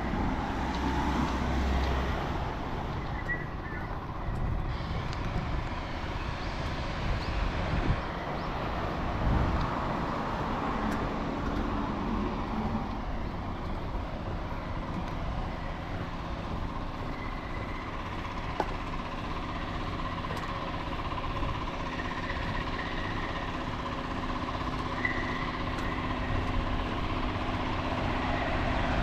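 Road traffic noise: vehicles passing on a road, a continuous low rumble and tyre hiss with no single event standing out.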